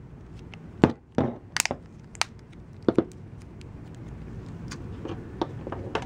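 Samsung Galaxy S4's plastic back cover snapping onto the phone as thumbs press its edges: a series of sharp plastic clicks, most of them in the first three seconds, with a few fainter ones later.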